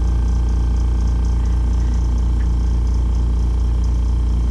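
Air compressor running steadily with a low, even hum, pumping up its tank to pressure-test an air line for a leak.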